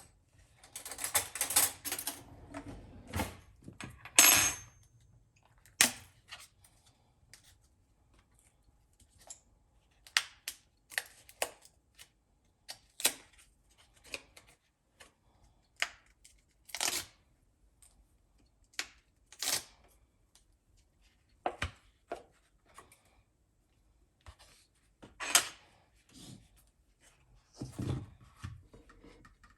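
Light clicks and taps of small objects being handled and set down, every second or two, after a few seconds of rustling at the start.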